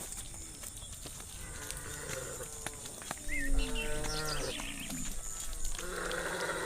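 Cows mooing, several calls in turn: a short moo about two seconds in, a longer moo falling in pitch a second later, and a loud, rough moo near the end.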